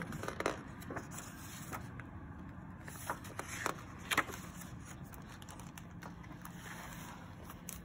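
Pages of a hardcover picture book being turned by hand: paper rustling with a few light flicks and taps, the sharpest about four seconds in.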